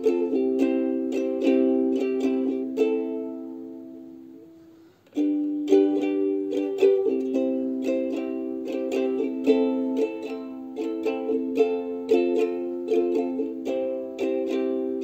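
Background music: a light tune of quick plucked-string notes. It fades away about four seconds in and starts again a moment later.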